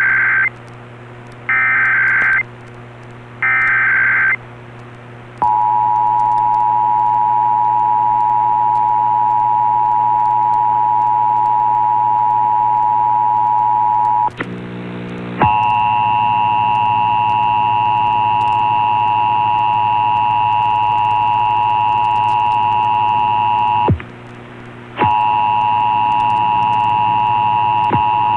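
Emergency Alert System test over a radio broadcast: three one-second bursts of the SAME digital header data, then the steady two-tone EAS attention signal, which breaks off twice for about a second and resumes.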